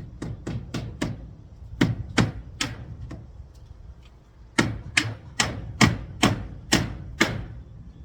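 Hammer strikes in three runs, four, then three, then seven, about two or three blows a second.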